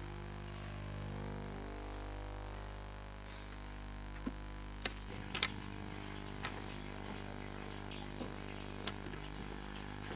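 Steady electrical hum with many overtones, changing character about five seconds in, with scattered sharp clicks from about four seconds on.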